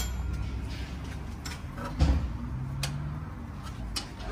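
Scattered metallic clicks of a socket wrench working the power-steering pump's pivot bolt loose, with a louder thump about two seconds in.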